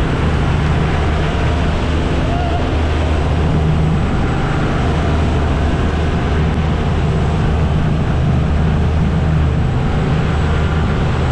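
An engine running steadily at an even speed: a constant low drone with a steady rushing hiss over it.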